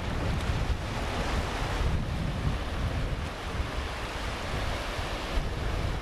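Small waves washing onto a sandy beach and rocky shore, swelling and easing every couple of seconds, with wind rumbling on the microphone.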